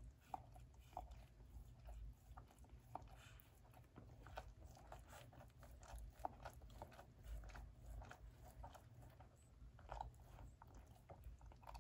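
Faint, irregular little smacks and clicks of newborn Australian Labradoodle puppies suckling at their mother's teats.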